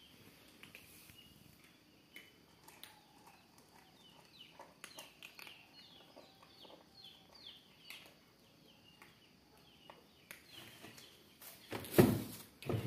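Cats and a dog eating dry kibble, with soft crunching clicks, while a run of short high chirps repeats about three times a second in the middle. Near the end come a couple of loud, sudden knocks or clatters.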